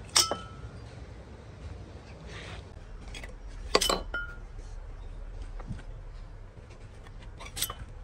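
Three sharp clinks of hard objects knocked together, spaced a few seconds apart; the first two ring briefly. A steady low hum runs underneath.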